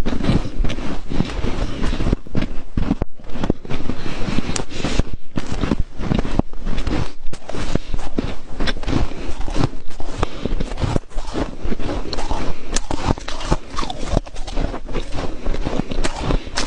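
Freezer frost being bitten and chewed close to the microphone, a dense, irregular run of crunches and crackles.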